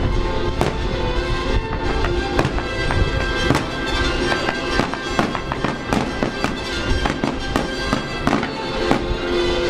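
Fireworks bursting, a rapid series of sharp bangs a few each second, over music with long held notes.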